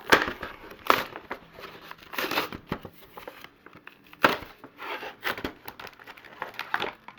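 Action-figure packaging being handled and opened: irregular crinkling and rustling of plastic and cardboard, with several sharp cracks.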